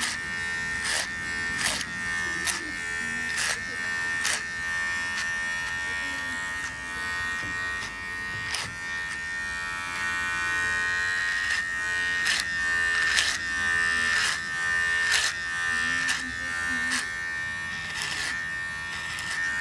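Electric hair clipper buzzing steadily with a high whine as it trims around the ear and neckline. Sharp scratchy clicks come about once a second, with a few seconds' gap in the middle.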